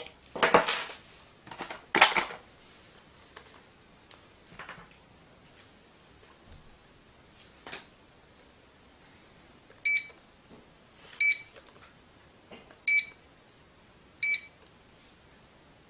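Wireless home alarm control panel beeping four times, one short high beep per key press as an instruction is entered, about one every second and a half, after a few soft clicks of handling near the start.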